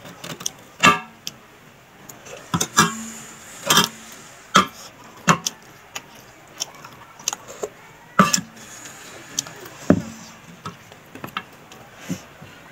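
Close-up eating sounds of a papaya salad meal: a metal spoon clicking and scraping in the dish, with crunchy chewing, heard as irregular sharp clicks and short crackles.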